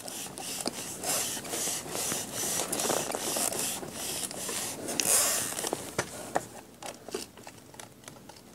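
A hand rubbing and pressing over the clear acrylic door of a MISTI stamping tool to press a stamp onto card: a run of quick scratchy rubbing strokes for about six seconds, then a few light clicks.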